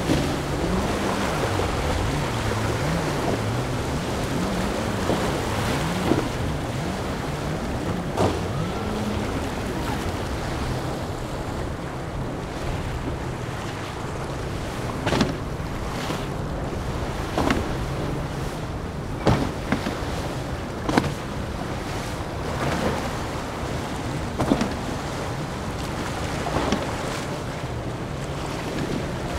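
Motorboat engines droning as the boats power through rough inlet waves, the pitch wavering as the hulls ride the swells, over the rush of surf, spray and wind on the microphone. In the second half, twin Yamaha 150 outboards on a Grady-White Fisherman 257 run steadily while a series of sharp slaps sound as the hull hits the waves.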